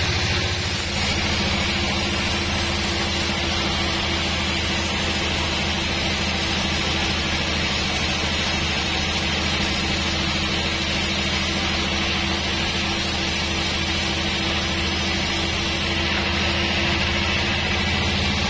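Sawmill band saw running, its blade ripping lengthwise through an old teak log with a steady hiss over the low drone of the machine. About three-quarters of the way through, the highest part of the hiss drops away.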